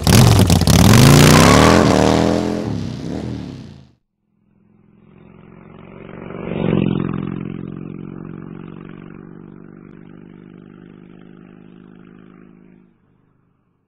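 A motorcycle engine revving up and back down, loud, cut off after about four seconds. After a short gap, a sustained held tone comes in, swells with a whoosh and then slowly fades out.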